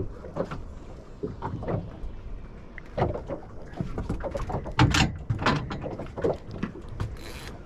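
Aboard a fishing boat at sea: irregular knocks, clunks and splashes over a low rumble of water and wind, the loudest hit about five seconds in, with a short hiss near the end.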